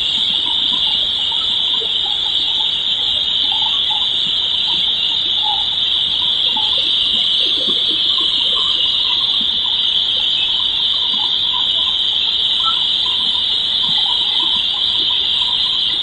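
A steady, loud high-pitched hiss that does not change.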